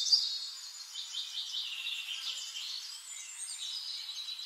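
Birds chirping and singing, a steady run of high-pitched twitters and trills.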